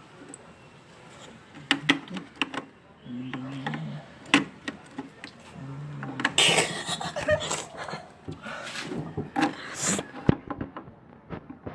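Quiet voices in the background, with scattered sharp clicks and knocks and two short bursts of rustling noise partway through.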